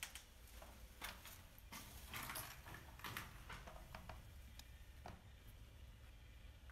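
Faint, irregular scuffs and crunches of someone moving over concrete rubble, about a dozen soft clicks spread unevenly, over a low steady rumble.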